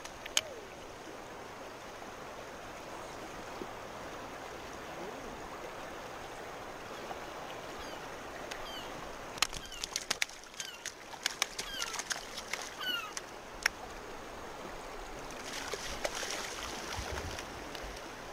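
Steady rushing of a shallow river flowing over gravel. In the middle, a quick run of sharp clicks mixed with short, falling high chirps.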